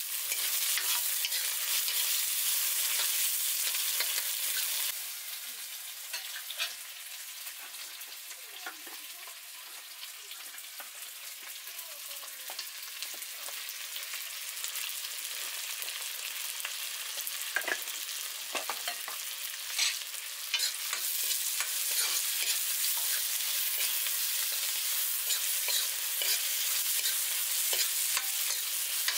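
Tomato and onion sizzling as they fry in oil in a black kadai, with a metal spatula scraping and clicking against the pan as they are stirred. The sizzle turns quieter about five seconds in and builds back up after about twenty seconds.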